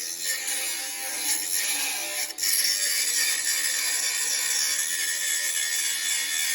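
Makita DGA513 18 V brushless angle grinder with a quarter-inch grinding wheel, grinding steel under load with a steady whine and grinding hiss. It drops off briefly about two seconds in, then bites in again louder.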